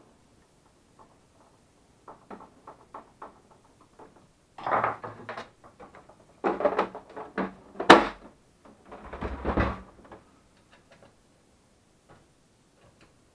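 Light clicks of screwdriver work, then a few seconds of clattering and knocking as a Melitta Barista TS Smart automatic coffee machine's plastic housing is handled and turned over onto its side on the bench. One sharp knock, the loudest, comes about eight seconds in.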